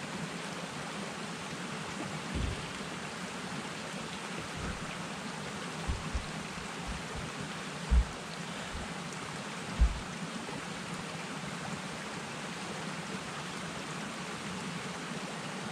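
Steady hiss of rain falling through the forest. A few dull, low thumps sound over it, the loudest about eight and ten seconds in.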